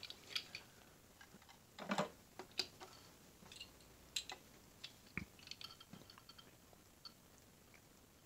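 Scattered faint clicks and taps of a small 1/64-scale diecast model car and camper trailer being handled and set down on a mat while the trailer is lined up with the car's hitch, with a soft knock about five seconds in.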